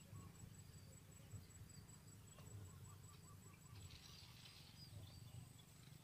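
Near silence: faint insect chirping with an even high pulsing note, over a low steady hum.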